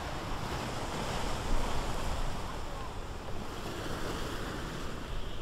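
Wind buffeting the microphone outdoors: a steady rushing noise with an uneven low rumble.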